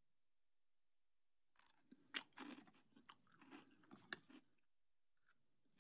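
A mouthful of crunchy cereal being chewed: a run of crunching chews that starts about a second and a half in and stops about a second before the end.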